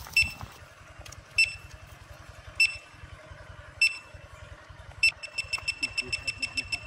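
Metal detector beeping: single short high beeps about every second and a quarter, then a little after five seconds in it switches to rapid beeping, about five a second, the sign of a metal target close to the coil.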